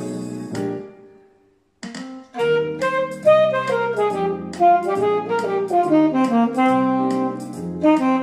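An accompaniment chord, likely piano, fades out into a short pause, then an alto saxophone comes in about two seconds in and plays a melody of short and held notes over lower accompanying notes.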